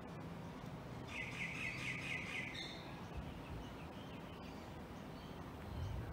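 A bird calls with a rapid run of notes about a second in, lasting about a second and a half, over faint steady outdoor background noise.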